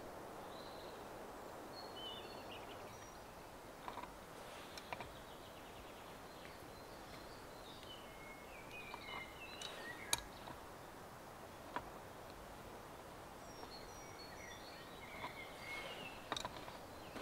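Birds chirping in short spells over a steady, faint outdoor hiss, with a few sharp clicks.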